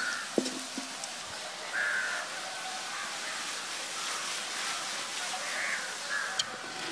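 Crows cawing a few times in short calls, over the steady hiss of diced palm sprouts frying in oil in a pot.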